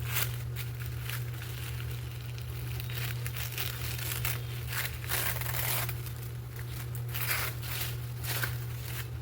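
Thin paper wrapping being handled and unwrapped: irregular rustling and crinkling with a few louder crackles, over a steady low hum.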